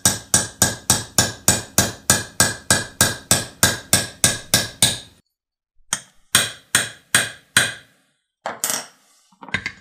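Armorer's hammer tapping a roll pin punch to drive the forward assist roll pin into an AR-15 upper receiver. There is a quick even run of light metallic taps, about three a second, with a faint ring. After a short pause come several heavier, spaced blows as the pin is seated.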